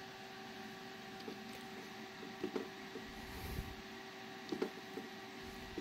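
Faint scattered clicks of computer input as BIOS menus are paged through, with a dull low bump a little past halfway, over a steady faint hum.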